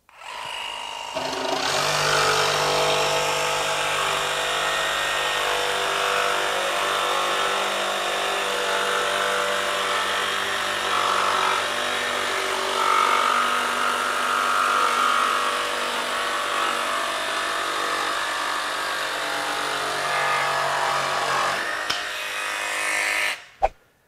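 Makita XVJ01Z 18V brushless barrel-grip jigsaw cutting through plywood. It starts up at the beginning, runs steadily through a long cut, and stops near the end.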